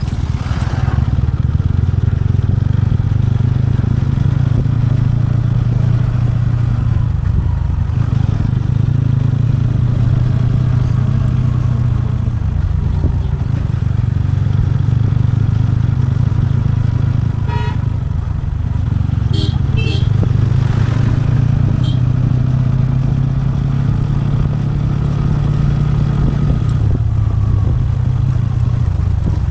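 TVS Ronin's single-cylinder engine running steadily on the move, its pitch drifting slightly with the throttle. A few brief sharp, high sounds come about two-thirds of the way through.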